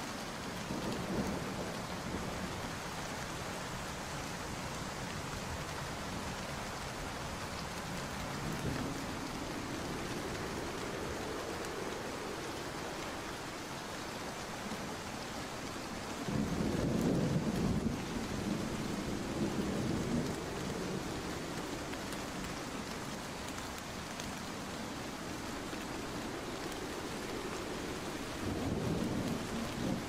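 Steady heavy rain falling, with low rolls of thunder rumbling in several times; the loudest roll comes about 16 seconds in and lasts several seconds.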